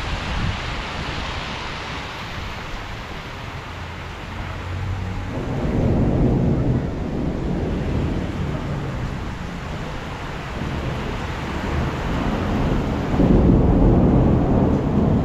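Steady rain with deep rolling rumbles of thunder, swelling about five seconds in and again near the end.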